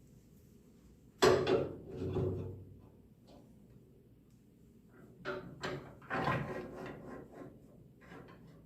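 Clunks and rattling of tools and parts being handled at a wood lathe: one loud knock about a second in, then a run of knocks and scraping rattles in the second half. The lathe's motor is not running.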